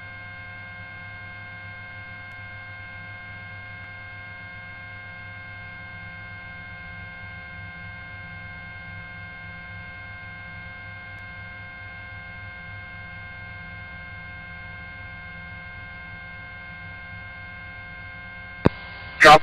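Helicopter cabin noise carried on the crew's intercom line: a steady hum with several held tones, narrow-band like a radio channel, unchanging throughout. A single sharp click comes near the end.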